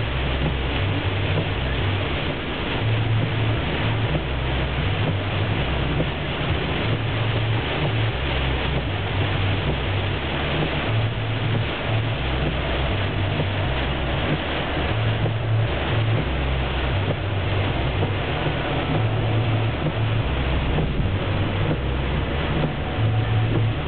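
Steady storm and road noise inside a moving van on a highway: tyres hissing on a wet road and rain or hail hitting the body, over a low uneven rumble.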